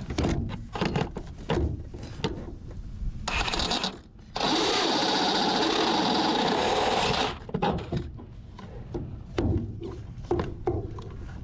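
Power drill running a step bit to cut a hole one size larger: one steady spell of cutting lasting about three seconds near the middle, after a shorter burst. Scattered clicks and knocks of handling come before and after.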